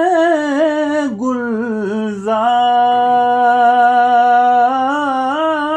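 A solo voice singing an Urdu naat (devotional song), drawing out long held notes that bend slowly in pitch between the words of a line.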